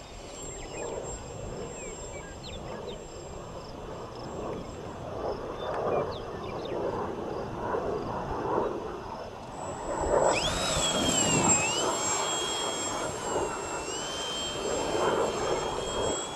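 Wind gusting on the microphone with an RC aerobatic profile airplane's motor whining faintly; about ten seconds in the motor whine comes up loud and high, rising, dipping twice in pitch with the throttle, then holding steady.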